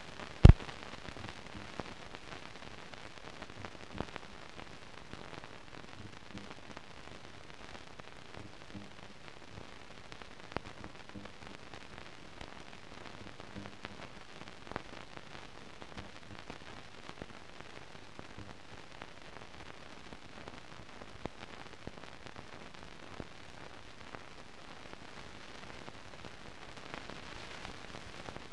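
Steady hiss with scattered clicks and crackle, the surface noise of an old film transfer that carries no recorded sound. One loud sharp pop comes about half a second in.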